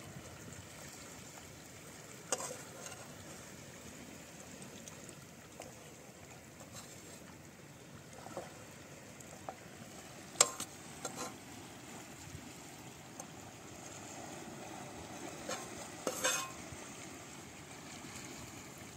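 Plastic spatula scraping and tapping in a frying pan while food is served from it onto a plastic plate: soft scrapes and scattered clicks, the sharpest about ten seconds in and another cluster around sixteen seconds, over a faint steady background.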